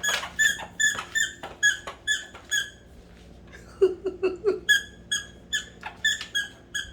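A squeaky dog toy being chewed by a puppy, squeaking over and over at about three squeaks a second, each squeak the same pitch, with a short pause midway. A few short, lower sounds come about four seconds in.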